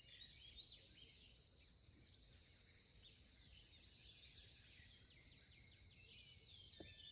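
Faint outdoor ambience: birds chirping over and over in short rising and falling calls, over a steady high insect hum.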